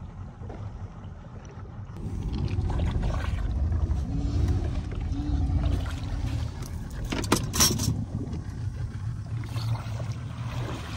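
Low rumble of a small open fishing boat with water sloshing at the hull as it comes alongside a diver, growing louder about two seconds in. A short sharp knock sounds about seven and a half seconds in.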